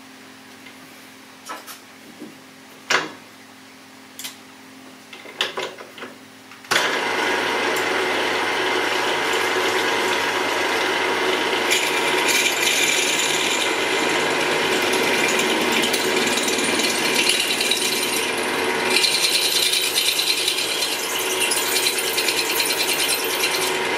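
A few knocks and clicks over a low hum, then about seven seconds in a drill press starts and runs steadily as a 5 mm bit cuts into the rusty carburettor flange clamped in its vice.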